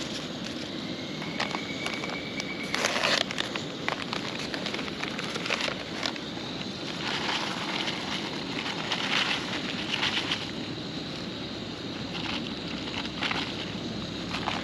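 Cooking fire crackling over a steady hiss, with scattered sharp pops and a louder crackle about three seconds in.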